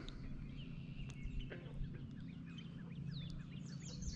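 Small birds calling in many quick short chirps, several voices overlapping, over a low steady hum.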